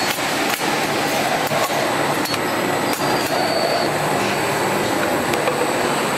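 Automatic linear capping machine running: conveyor and spinning cap-screwing wheels make a steady mechanical whirr, with light sharp clicks about twice a second as jars pass through.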